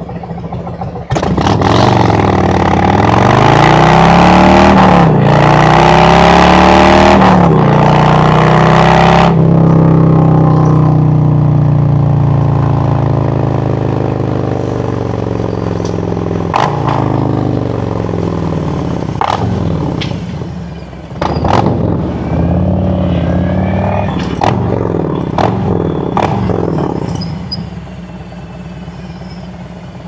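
Harley-Davidson Road Glide Special's Milwaukee-Eight V-twin pulling away hard about a second in, revving up through a couple of gear changes, then easing off with the pitch falling as the bike slows, a few sharp cracks along the way. It surges again briefly, then drops back to a lower idle near the end.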